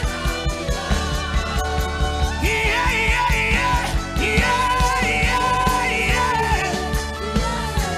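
Worship music with a steady beat under held chords; a wavering melody line comes in about two and a half seconds in and drops away near the end.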